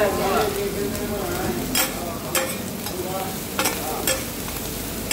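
Beef, cabbage and onion sizzling on a large flat iron griddle while two metal spatulas stir and toss them. Several sharp scrapes of metal spatula on iron come through the steady sizzle.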